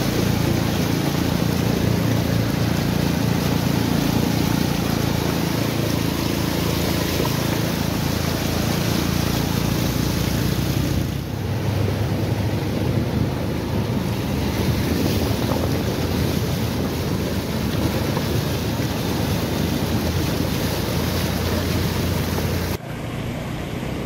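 Motorcycle riding through floodwater: a steady engine hum under the continuous splashing wash of water thrown up by the wheels, with wind buffeting the microphone. The sound shifts abruptly about eleven seconds in and drops in level near the end.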